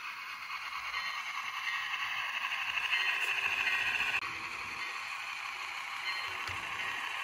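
HO scale Bachmann Shay model steam locomotive running along the track, a steady mechanical whir from its motor and geared drive, with a brief break about four seconds in.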